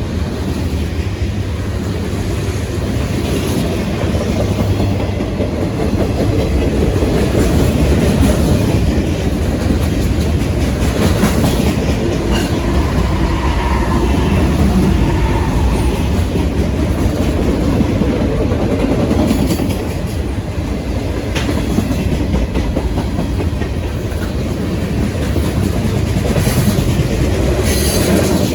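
Freight train rolling past on steel rails: a steady rumble with the clickety-clack of freight car wheels over the rail joints.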